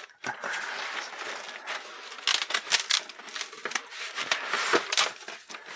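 Cardboard shipping-box flaps being folded open by hand, scraping and rustling, with sharp crackles from the plastic air-cushion packing underneath.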